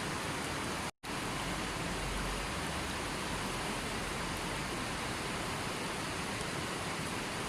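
River water rushing steadily, a dense even hiss. The sound cuts out for an instant about a second in, then carries on unchanged.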